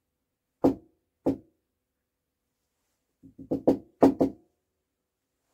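Short, sharp knocks of small metal diesel injector parts being handled and tapped at the bench: two single knocks, then a quick run of about six a little past three seconds in.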